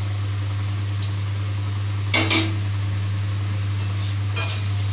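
A steel bowl and spatula clink and knock against a metal kadai as fried fish roe is scraped into it: a light click, a louder knock a little after two seconds, then a few quick clinks of stirring near the end. A steady low hum runs underneath throughout.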